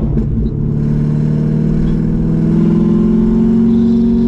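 Straight-piped C6 Corvette V8 with long-tube headers, accelerating under load. The loud exhaust note climbs steadily in pitch after about a second.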